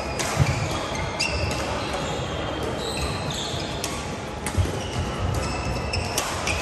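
Badminton play on a hall court: several sharp racket hits on shuttlecocks, many short squeaks of court shoes on the floor mat, and a few dull footfalls.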